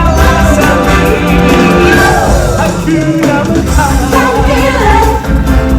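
Loud music with a singing voice over full instrumental backing and a steady low beat.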